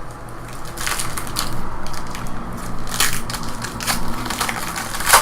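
Foil trading-card pack wrappers being crinkled and crumpled by hand, in several crackly bursts, the loudest near the end.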